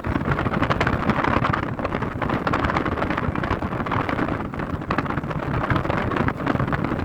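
Fireworks crackling and hissing in a dense, steady stream of small pops, with no single large burst.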